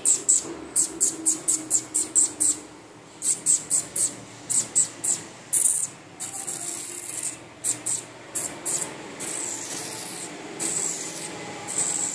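A cat rubbing and scrabbling on quilted fabric: runs of quick rasping rubs, about four a second, broken by longer stretches of rustling.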